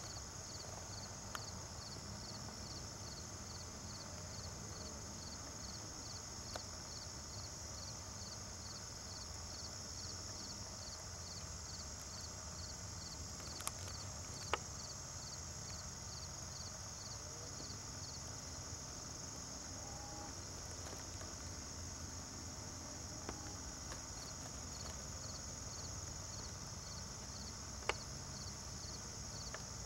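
Insect chorus: a steady high buzz with a regular chirp about twice a second running under it. A few sharp clicks stand out, the loudest near the end.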